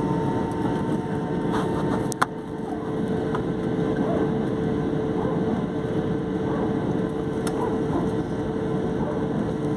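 Jet airliner's engines and cabin noise heard from inside the cabin while the plane taxis: a steady drone with a held steady tone. A single sharp click about two seconds in.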